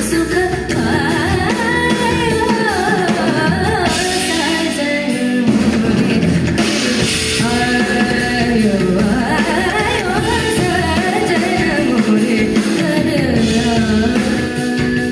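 Female vocalist singing a gliding, ornamented melody in Indian classical style, over amplified band accompaniment with drum kit and percussion, heard live through a concert PA.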